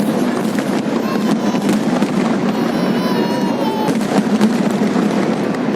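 Fireworks display: a dense, continuous crackling with many pops, and whistles about three seconds in.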